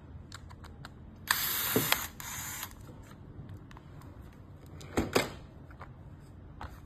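Hands working on a remote-control car's small parts: scattered light clicks and knocks, two short hissing bursts just after a second in, and two sharp clicks about five seconds in.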